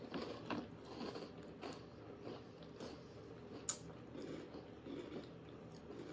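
Faint chewing of a crunchy chocolate cereal, with scattered soft crunches and one sharp click a little past the middle.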